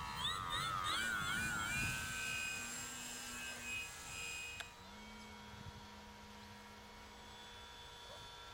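Electric motor and propeller of a Multiplex Park Master 3D model plane whining, its pitch wobbling up and down about three times a second, then holding steady. About four and a half seconds in it cuts to a fainter, steady whine.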